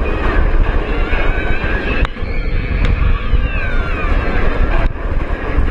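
Wind blasting over the camera's microphone and the steady roar of a Bolliger & Mabillard inverted roller coaster train running fast along its steel track, with riders' wavering screams over it and a couple of sharp clicks.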